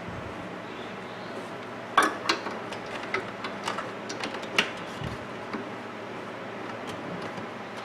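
Small hard clicks and taps from handling a microwave door latch and its parts: one sharp click about two seconds in, then scattered lighter clicks over the next few seconds, over a low steady hum.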